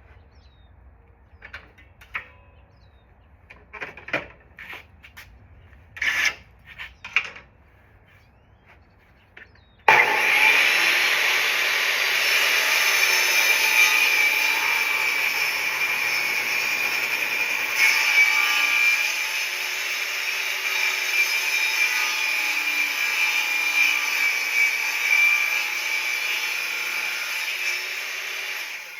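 Table saw ripping a board lengthwise: a loud, steady blade-cutting noise that starts abruptly about ten seconds in and runs for about eighteen seconds before dying away near the end. Before it, scattered quiet knocks and clicks.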